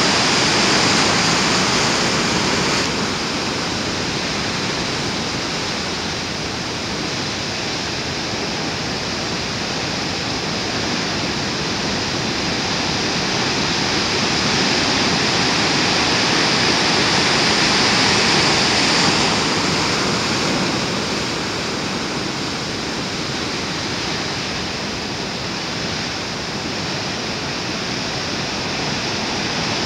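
Heavy ocean surf breaking on a rocky shore: a continuous rush of crashing waves and churning foam that swells louder in the middle stretch and eases off after.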